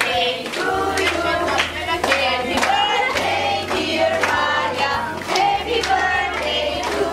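A group of voices singing together, with hand clapping.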